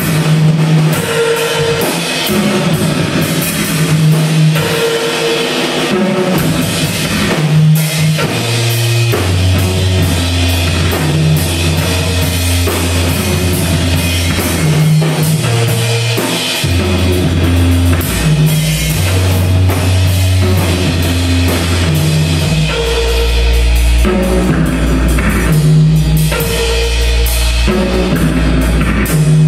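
Live trap music: an acoustic drum kit played along with electronic beats, over a loop of short repeating notes. Long, deep bass notes come in about nine seconds in and get heavier near the end.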